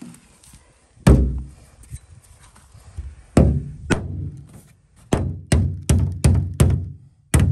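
Hammer blows from the poll of a hatchet on the aluminium hull of an upturned jon boat, each hit ringing briefly. About nine strikes: a few spaced ones, then a quicker run of about three a second near the end. The hull is being dented in around a crack to make a recess for an epoxy patch.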